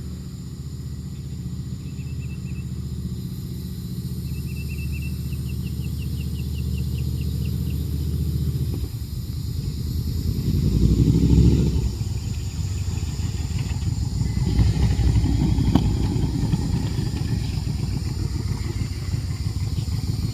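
A Yamaha Royal Star Venture's V4 engine running on a test ride after a clutch slave cylinder rebuild. Its steady note grows louder over the first nine seconds as the bike approaches, rises to its loudest around eleven seconds, then continues rougher and noisier.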